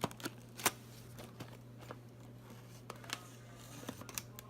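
Plastic blister packaging being handled and pried open: a few scattered sharp clicks and crinkles over a steady low hum.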